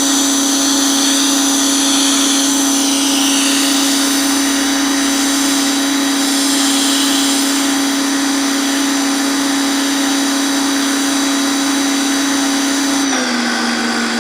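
Pressure washer running steadily, its motor hum under the hiss of the high-pressure spray. About thirteen seconds in the hum drops slightly in pitch.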